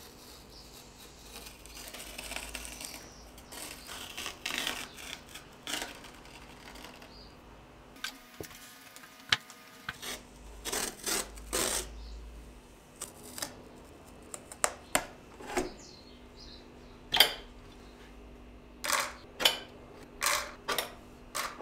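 Brass reeds being pulled from a reed organ's reed cells with a hooked reed puller and pliers. Scraping of metal on wood gives way, about ten seconds in, to a series of sharp clicks and clinks as the reeds come free and are handled.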